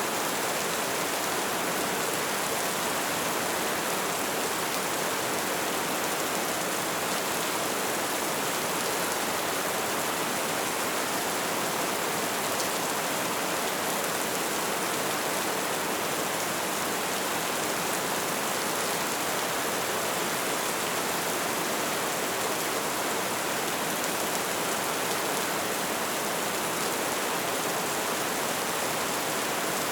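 Rain falling steadily: an even, unbroken hiss with no separate drop impacts or thunder.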